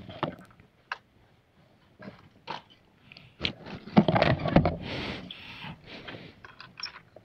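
A dog making short, irregular vocal sounds, loudest about four seconds in.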